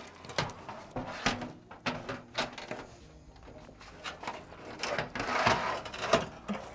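A PC power supply and its cables being handled and plugged in: a series of separate clicks and knocks, with a longer rustling scrape about five seconds in.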